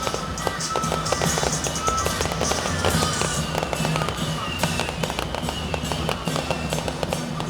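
Strings of firecrackers crackling rapidly and without a break, over music with steady held tones.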